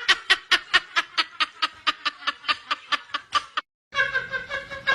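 A person laughing in a rapid run of snickers, about six a second, fading and then cut off abruptly. A different steady pitched sound starts after a brief gap near the end.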